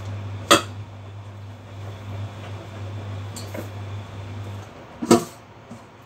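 Two sharp metallic clinks, about four and a half seconds apart, of kitchen utensils against a stainless steel bowl, with a few fainter ticks between them. A steady low hum runs under them and stops shortly before the second clink.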